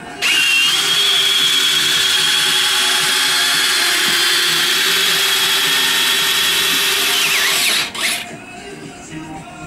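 Electric retract unit of an RC Corsair model lowering its main landing gear: a steady, high-pitched motor whine for about seven seconds that drops in pitch as the motor stops. About a second later there is a brief sharp knock.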